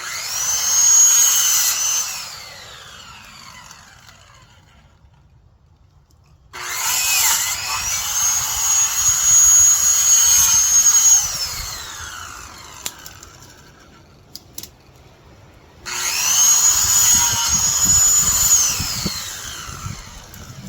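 Corded electric saw cutting brush in three bursts: each time the motor spins up quickly to a high, steady whine, then winds down with a falling pitch when the trigger is let go.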